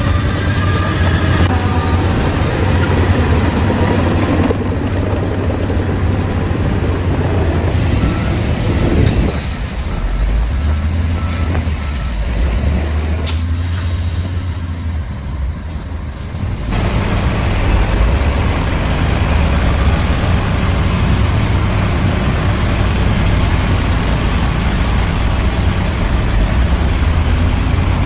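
Heavy diesel bulldozer engines running under load, a steady low engine note that shifts abruptly a few times. Partway through, a backup alarm beeps in an even series of short tones.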